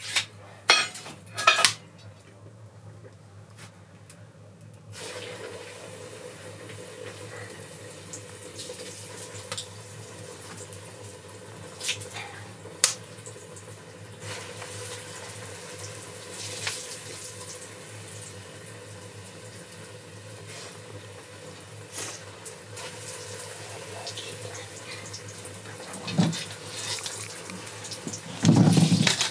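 Hot oil sizzling steadily in a pot over a wood fire as food deep-fries, starting about five seconds in. Metal tongs clink against the pot now and then, with a couple of louder dull knocks near the end.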